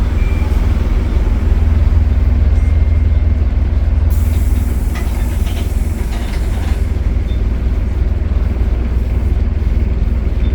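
Optare Solo single-deck bus running, a steady deep diesel rumble, with a hiss from about four to seven seconds in.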